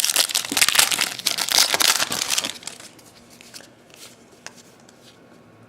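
Foil trading-card pack wrapper crinkling as it is torn open and handled, dense and loud for about the first two and a half seconds, then a few faint clicks.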